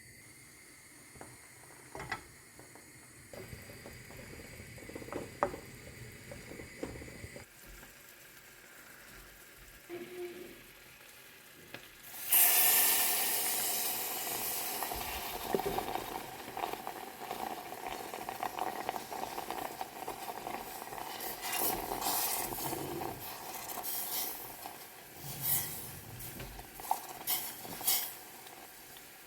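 Quiet kitchen handling with a few small clicks and knocks, then about 12 s in food goes into a hot pan with a sudden loud sizzle that eases off and keeps frying, with utensils clicking and scraping as it is stirred.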